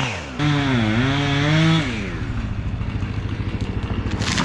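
Chainsaw engine revving, its pitch dipping and rising, then dropping about two seconds in to a lower, pulsing idle. A short hiss comes near the end.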